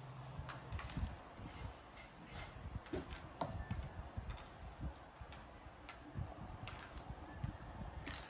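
Toy tabletop pool table in play: small balls clicking against each other and the rails, with light taps of a thin stick cue. The clicks come irregularly, a few a second.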